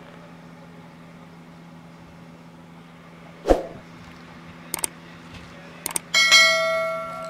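Subscribe-button animation sound effects: a whoosh about three and a half seconds in, two mouse clicks, then a notification bell chime that rings out. A steady low hum, like a car engine idling, runs underneath.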